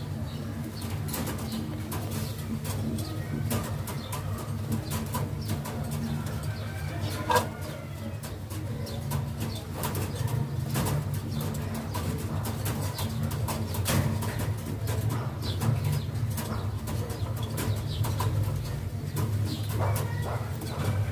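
Domestic pigeons of the American Modena breed cooing in a low, continuous murmur, with wings flapping and many scattered clicks and taps. One louder knock comes about seven seconds in.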